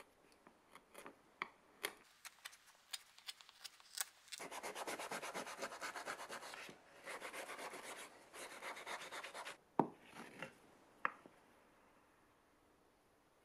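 A hand blade shaving the edge of a pine block in short, separate strokes. Then a sanding sheet is rubbed rapidly back and forth over the wood in two runs, and a few light knocks come near the end.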